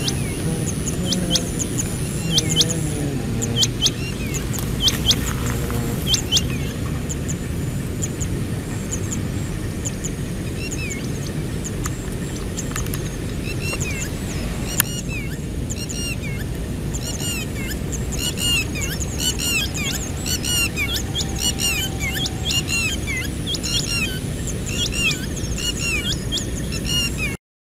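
Small birds chirping: a few sharp, separate chirps at first, then a busy run of quick repeated chirps from about ten seconds in. Underneath is a steady low outdoor rumble, and the sound cuts off suddenly near the end.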